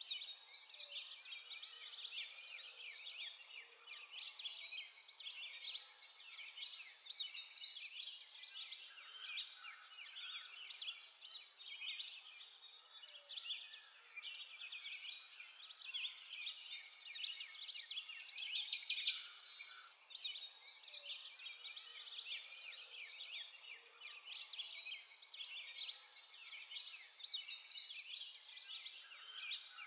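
A dense chorus of many birds chirping and singing at once, the calls overlapping and swelling and fading in loudness, high-pitched with no low sound beneath.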